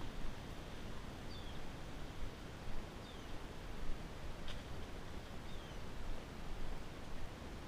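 Outdoor ambience on horseback: a low, uneven rumble of wind and camera movement as the horse walks, with a few faint, short, falling bird chirps.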